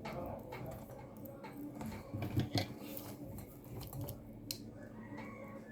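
Snipping and clicking of a cutting tool trimming off the separator in the middle of a twisted-pair network cable: a few sharp snips, the loudest two close together near the middle, with handling noise between.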